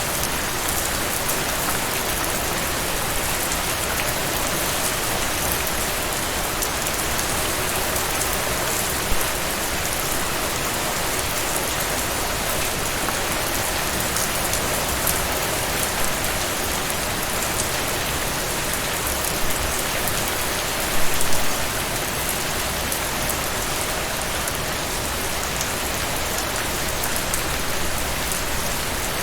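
Steady rain falling on a surface, an even hiss with the patter of individual drops, and a few slightly louder splashes about nine seconds in and again about twenty-one seconds in.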